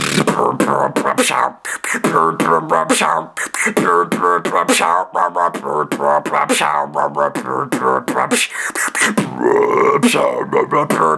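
Solo vocal beatboxing with heavy bass: rapid mouth-made kick and snare clicks over a continuous buzzing, sung bass line, and a rising vocal sweep near the end.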